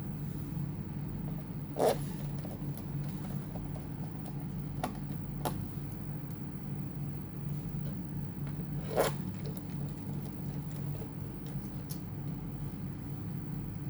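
Light clicks and knocks of a laptop and its small parts being handled, over a steady low hum. The two louder knocks come about two seconds in and about nine seconds in, with a few fainter ticks between.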